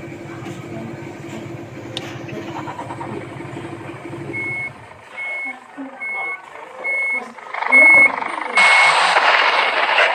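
A truck's engine idles with a low, even rumble that cuts out about halfway through. A reversing alarm then beeps roughly once every second. Near the end a loud steady hiss sets in under the beeps.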